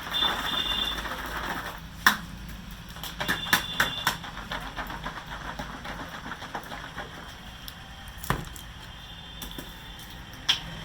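Hands working on a head during a massage: rubbing at the start, then a sharp smack about two seconds in, a quick run of taps about a second later, and two more single knocks near the end.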